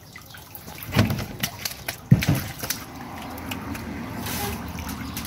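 Water splashing and dripping into a shallow fish tank from a catfish held in a cloth above it, with two dull knocks about one and two seconds in, then a steady trickle.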